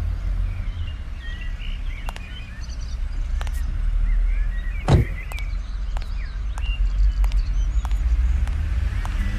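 Low steady rumble of an SUV's engine idling, with birds chirping, and a car door slammed shut about five seconds in.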